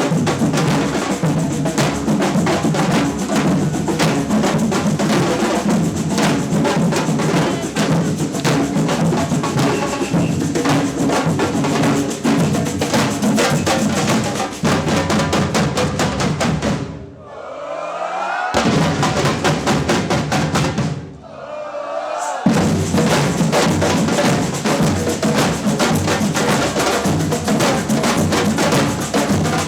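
Batucada drumming by a samba percussion band, with bass drums and snares playing a dense funk rhythm. Past the middle the low drums drop out twice for about a second and a half each while the higher percussion carries on, then the full band comes back in.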